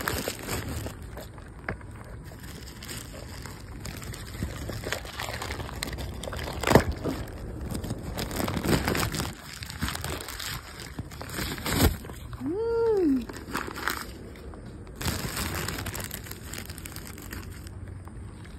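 Plastic packaging crinkling and rustling as a dog-treat packet is handled, with a few sharp knocks, the loudest about seven and twelve seconds in. About twelve and a half seconds in, a dog gives one short whine that rises and falls.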